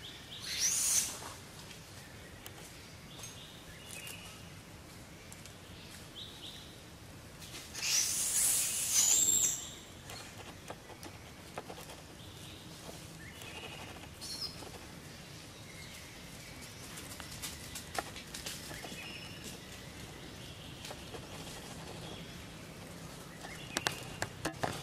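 Macaque monkey screeching in two shrill, high-pitched bouts: a short one about a second in and a longer one about eight seconds in. Faint scattered clicks and leaf rustling come between them.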